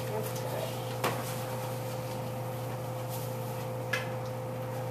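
Steady hum of hospital-room equipment, with two short clicks about a second in and about four seconds in.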